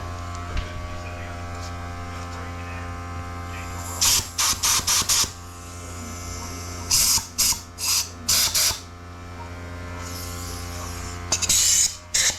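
Compressed-air blow gun fired in short hissing blasts into a fluid passage of a 4L60 automatic transmission case, to blow a piston out of its bore. The blasts come in clusters, about a second in length, and a steady low hum runs underneath.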